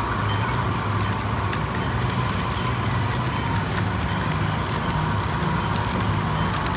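Steady low engine drone with a faint higher whine, unchanging throughout.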